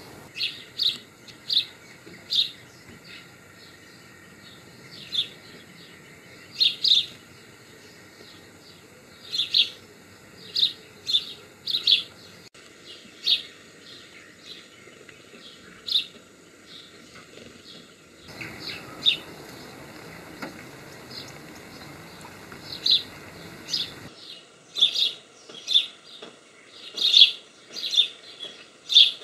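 Small birds chirping: short, high call notes repeated at irregular intervals, thinning out for a few seconds in the middle and growing denser again near the end.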